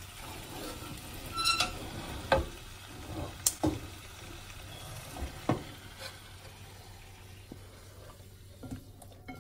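A wooden spoon stirs and scrapes lamb pieces dry-roasting in a yogurt masala in a hot wok. Under it is a low, steady sizzle. The spoon knocks sharply against the pan several times in the first six seconds.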